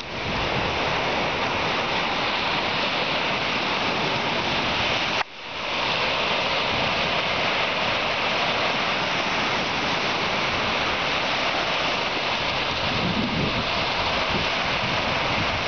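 Small waves breaking and washing over a rocky lakeshore, with wind blowing on the microphone, as a steady rushing noise that drops out briefly about five seconds in.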